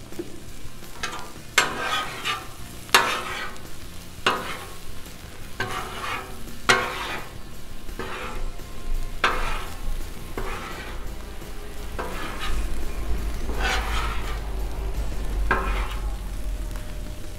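Two steel griddle spatulas scraping and turning a pile of corn kernels across a hot Blackstone flat-top griddle, with about a dozen metal-on-steel scrapes roughly a second apart. A steady sizzle of frying runs underneath.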